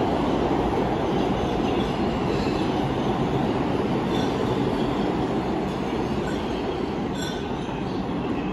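New York City subway train running through the station: a steady, loud rumble of wheels on rail with light, intermittent wheel squeal, easing slightly near the end.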